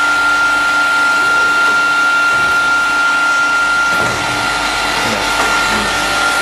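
CNC cutting machine running: a loud, steady noise with a constant high-pitched whine.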